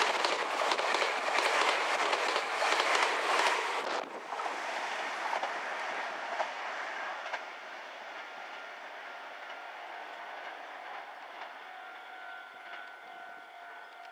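Meitetsu electric train passing over a level crossing, wheels clacking over the rail joints. It is loud for the first four seconds, drops off suddenly as the last car clears, then fades away into the distance.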